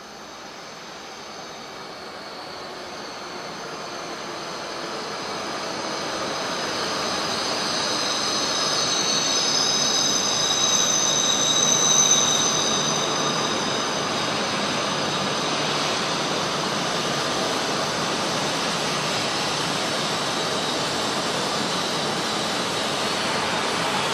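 Tōhoku Shinkansen train pulling into a station, growing louder as it comes in, with a high thin whine or squeal from the wheels and brakes at its loudest, about halfway through. Then a steady rushing as the carriages slide past along the platform.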